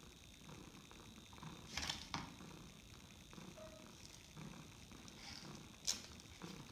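Ragdoll cat purring softly in a slow, pulsing rhythm, with a few faint sharp taps and rustles about two seconds in and again near the end.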